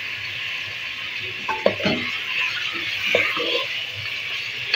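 Raw chicken pieces sizzling in hot oil in a metal pot while a wooden spatula stirs them, knocking against the pot a few times.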